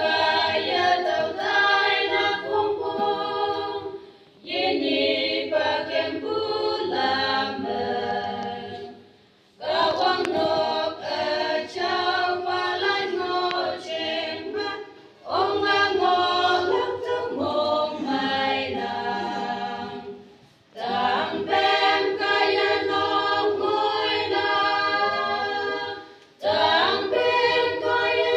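A women's choir of eight voices singing a hymn unaccompanied. The sung phrases are broken by short pauses every five or six seconds.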